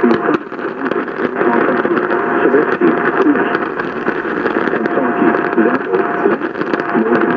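NOAA Weather Radio broadcast received through heavy static: a voice buried in a steady hiss, with a constant whistle tone running under it.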